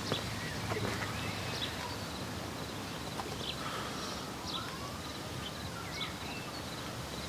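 Small birds chirping and twittering, short calls, quick whistled glides and rapid trills, over a steady low outdoor background noise.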